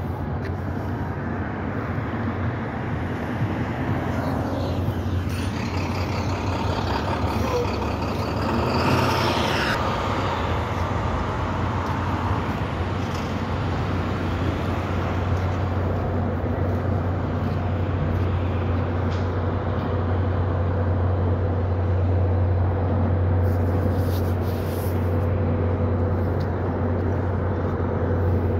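Outdoor vehicle noise: a steady low engine drone that grows a little stronger toward the end, with a road vehicle passing by about four to ten seconds in, its pitch falling as it goes.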